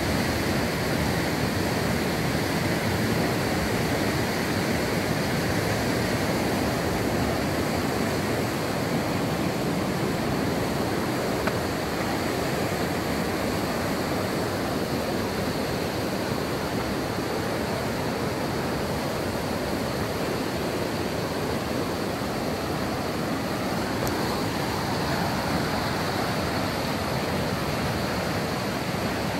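Floodwater of the River Wharfe rushing through rock rapids: a loud, steady, unbroken noise of white water.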